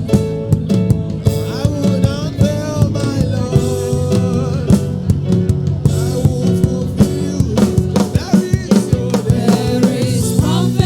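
Worship music with a drum kit keeping a steady beat under sustained held chords.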